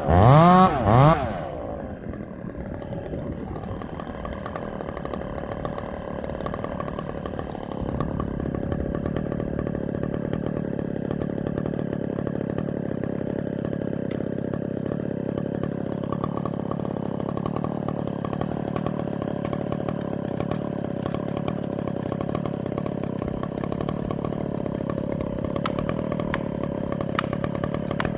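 Chainsaw revved twice in quick throttle blips, then dropping back about a second and a half in to a steady idle.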